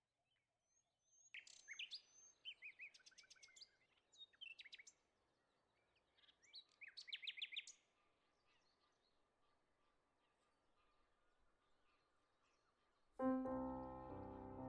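Small songbird chirping, with several short bursts of quick high trills and chirps in the first half. Soft music with held notes comes in near the end.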